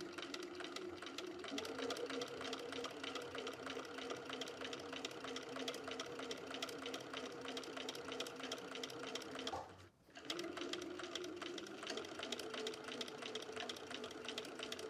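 Bernina electric sewing machine stitching a seam at a steady, fast run of needle strokes, its motor pitch stepping up about a second and a half in. It breaks off briefly about ten seconds in, then runs again.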